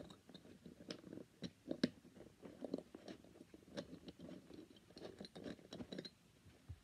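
Sink drain parts being handled and fitted into the drain hole of a clear plastic storage box: a run of irregular clicks, scrapes and crackles of plastic and metal, stopping about six seconds in, then a single soft low thump just before the end.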